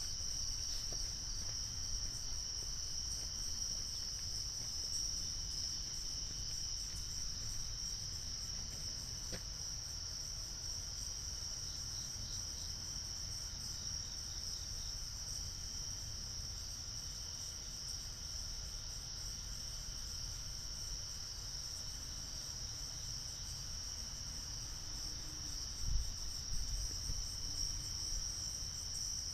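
A steady chorus of night insects trilling without a break, high-pitched, over a low rumble. There is a brief low thump near the end.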